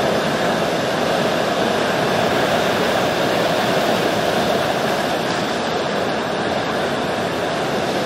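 Ocean surf, a steady rushing wash of breaking waves.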